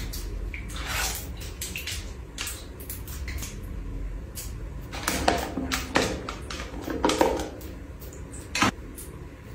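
Plastic jar of hair mask handled with a run of light clicks and taps, then scraping and clicking as its screw lid is twisted off, and one sharp click near the end.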